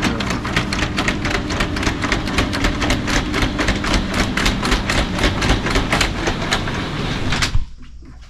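Tesla Cybertruck's powered tonneau (vault) cover closing over the bed: a steady motor hum under a rapid, even clatter of about five clicks a second, cutting off suddenly near the end as the cover finishes closing.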